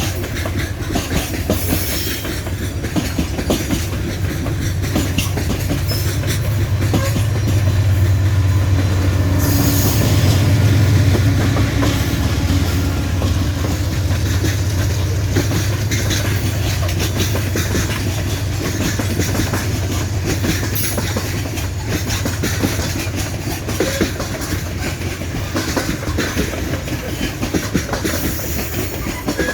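Coal train wagons rolling past close by, wheels clicking rhythmically over rail joints with some wheel squeal over a steady low rumble. The rumble swells for a few seconds around a third of the way in.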